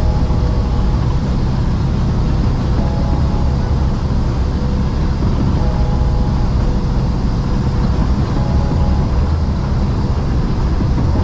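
Hauling truck driving at highway speed: steady low rumble of engine and road noise, heard from inside the cab.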